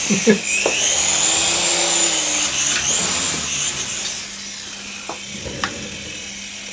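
Syma S107H toy RC helicopter's small electric motors and counter-rotating coaxial rotors whirring with a high, wavering whine. The sound eases off after about four seconds, when the helicopter is caught in the hand, with a few light ticks.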